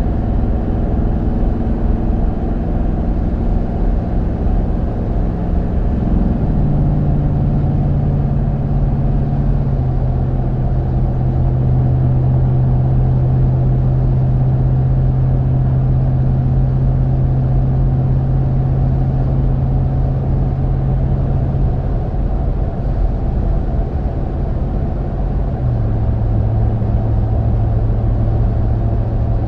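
Cabin road noise of a Toyota Sequoia driving on Mickey Thompson Baja Boss A/T all-terrain tires: a steady low rumble of tires and drivetrain. A strong low hum drops in pitch in sudden steps, about six seconds in, again about four seconds later, and near the end.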